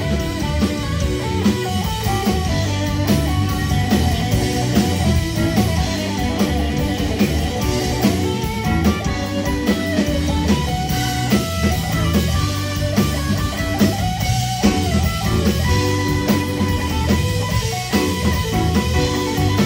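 Live rock band playing loud: a Stratocaster-style electric guitar plays a lead solo over a drum kit and rhythm guitar, with no singing.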